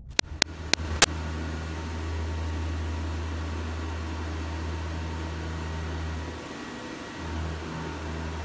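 Four sharp clicks in the first second, then the steady low hum of a Toyoda FV1165 CNC vertical machining center running with its doors closed. The deepest part of the hum drops out for under a second near the end, then comes back.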